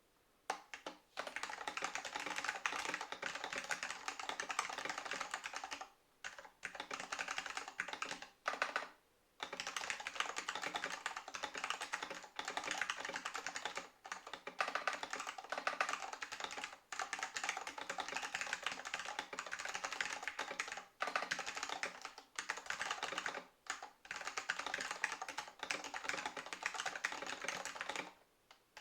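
Fast typing on a Matias Mini Tactile Pro mechanical keyboard with Alps SKCM Brown tactile switches: a dense, continuous run of key clicks, broken by brief pauses a few times.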